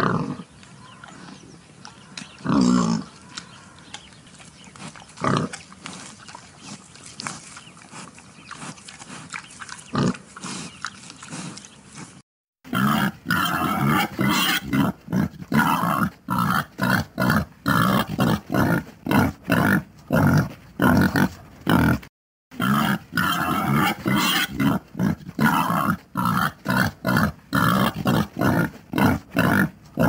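Wild boar grunting: a few separate, spaced calls at first, then, after a brief gap, a fast run of short grunts, two or three a second, broken once by a short pause.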